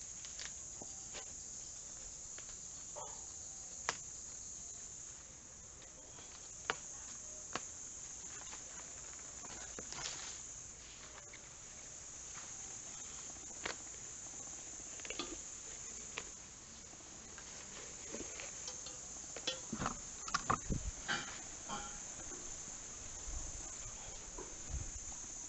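A steady, high insect chorus, with scattered sharp snaps and rustles as chaya leaf stalks are cut with a knife and the leaves handled; a cluster of louder knocks and snaps comes about twenty seconds in.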